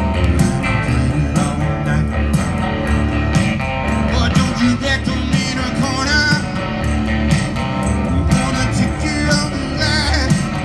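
Live blues band playing: electric guitar over a steady, repeating bass line and drums, with a singer's voice in places.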